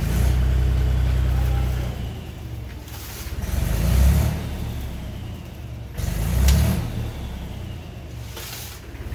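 Tractor diesel engine running as the tipping trolley lifts and a load of sand slides out the back. The engine is loudest in the first two seconds, with two louder low rumbles about four and six and a half seconds in and a sharp knock just before the second.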